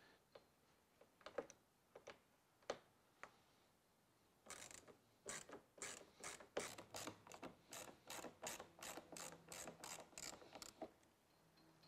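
A T20 Torx driver backing screws out of the spoiler: a few scattered clicks, then about halfway in a steady run of ratcheting clicks, about three a second, that stops shortly before the end.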